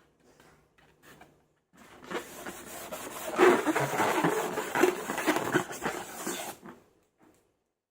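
Slime being worked by hand: a few faint clicks, then about two seconds in a dense crackling, squishing sound full of small pops that stops abruptly about five seconds later.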